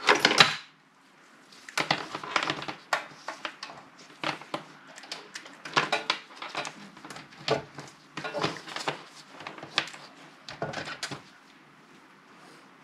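Irregular clicking and rattling of test leads and crocodile clips being handled and clipped onto a bench power supply's output terminals, going on for about nine seconds. Then only a faint steady hum remains.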